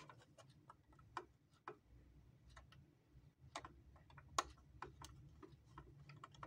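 Faint, irregular small clicks and ticks of a screwdriver working the needle-plate screw on a Juki MO-50E overlock machine.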